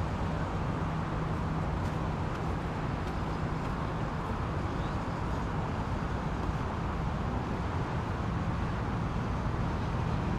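Steady running drone of a vehicle in motion, with a low engine hum under a constant rush of noise.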